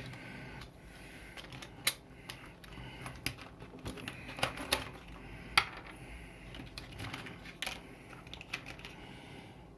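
Irregular light clicks and rattles of small plastic WAGO 222 lever connectors being picked up and handled, a few sharper clicks standing out.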